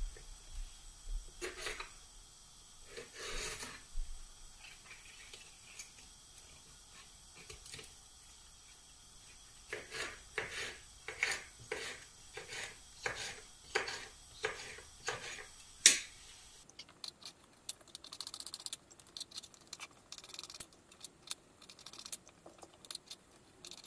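Kitchen knife cutting fresh red chillies on a wooden cutting board: a few scattered cuts, then a steady run of chops about two a second, ending in one sharp knock, followed by lighter, quicker clicking.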